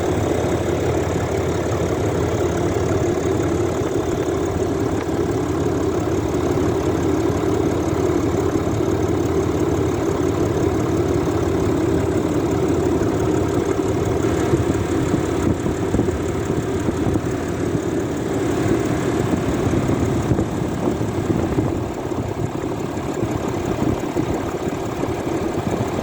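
Cummins 6.7-litre turbo-diesel inline-six idling steadily, running normally without any fault.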